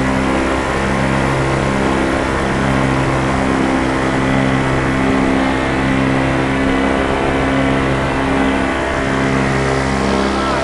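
Tandem paramotor's engine and propeller running steadily in flight: a continuous drone that wavers slightly in pitch, over a constant rush of air noise.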